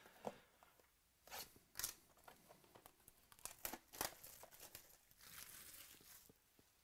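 A cardboard hobby box of 2018 Bowman Chrome baseball cards being handled: scattered sharp taps and scrapes as it is gripped and turned, then about a second of tearing near the end as it is torn open.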